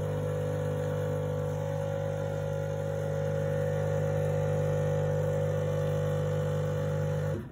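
WMF 2000 S superautomatic coffee machine brewing an espresso: its pump hums steadily while pushing water through the coffee, then cuts off suddenly near the end as the shot finishes.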